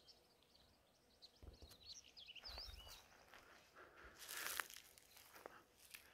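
Faint outdoor quiet with small birds chirping in short high sweeps, and a few soft crunching steps or rustles on dry ground, the loudest about four seconds in.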